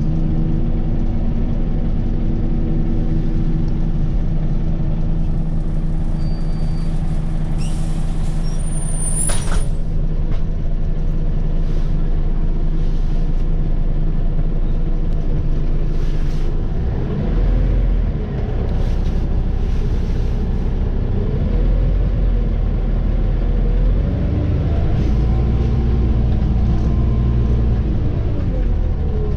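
Scania OmniCity city bus's diesel engine heard from inside the cabin, running steadily at low speed, then pulling harder in the second half with its pitch rising and falling several times through gear changes. A short high squeal with a click comes about eight to nine seconds in.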